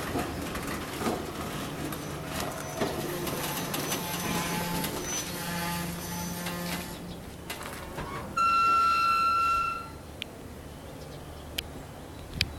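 Diesel locomotive on the Vietnamese railway giving one steady, loud horn blast of about a second and a half, a little past the middle. Before it there is the low rumble and scattered clanks of a train moving off.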